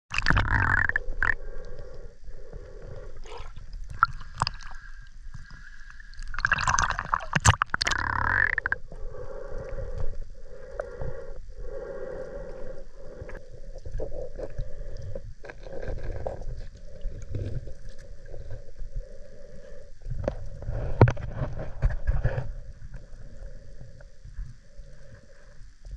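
Underwater drone's thrusters whirring in short on-and-off pulses, about one a second, as it is steered, with scattered knocks and a few louder stretches of churning water noise.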